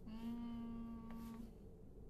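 A woman humming one steady, level note with her mouth closed for about a second and a half, a drawn-out thinking "hmm".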